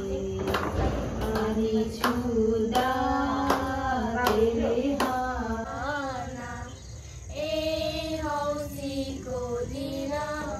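Women singing a devotional song to steady hand claps, about one clap every 0.7 seconds. About five and a half seconds in, the clapping stops and it turns to children singing together in high voices.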